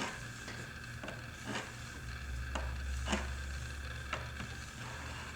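Stainless steel scissor blade worked on a strop dressed with aluminum oxide powder, making light, irregular ticks and rubbing; the stropping pulls the burr up onto the edge. A faint low hum runs underneath.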